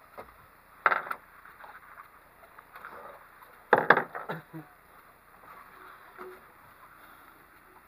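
Knocks and clatter on a fiberglass fishing boat: two short bursts of knocks, about a second in and again around four seconds in, with a smaller knock near six seconds, over a faint steady background of wind and water.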